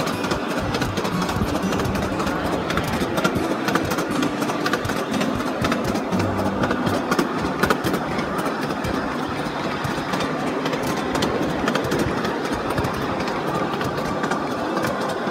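Ride-on miniature park train running along its track, a steady mechanical rumble with many small irregular clicks and rattles from the cars and wheels.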